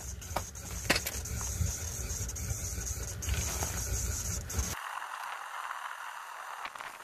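Wood fire burning in a brick stove's firebox, with scattered sharp crackles over a steady hiss. A low rumble under it stops abruptly about five seconds in.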